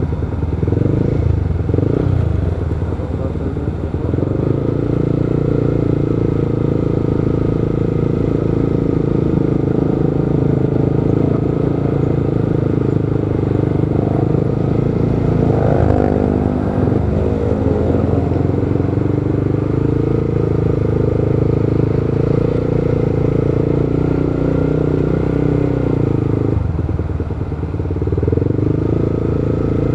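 Motorcycle engine running under the rider amid city traffic, its note steady, then briefly rising and falling about halfway through.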